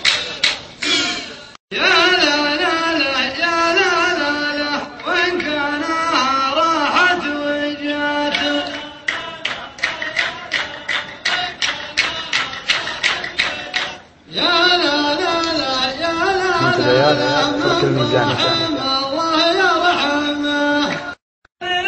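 A man singing a mawwal: a long, ornamented Arabic vocal line with held notes and gliding turns. A beat of sharp strikes runs under it at the start and again in the middle. The singing breaks off briefly about two seconds in, around fourteen seconds, and near the end.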